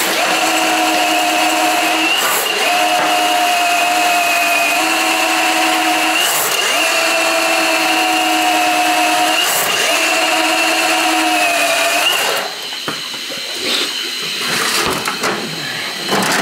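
Milwaukee M18 battery drain-cleaning machine running, spinning a 7/8-inch cable being fed into a clogged floor drain: a steady motor whine that dips briefly several times. About twelve seconds in the motor stops, leaving quieter knocks and rattles of the cable.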